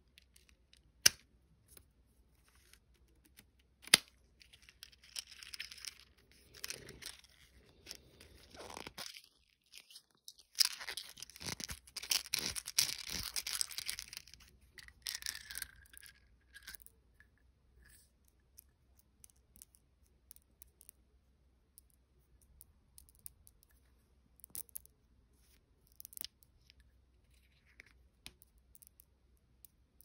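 Plastic candy packaging handled and torn open by hand: sharp clicks about one and four seconds in, then crinkling and tearing in bursts, densest around the middle. Later only scattered faint clicks as small hard candies are tipped from a plastic tube into a palm.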